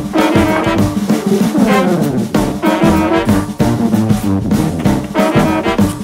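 Background music: brass-led jazzy tune with a steady beat.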